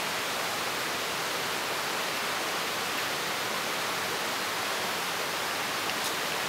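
Steady rushing of flowing water, an even unbroken hiss.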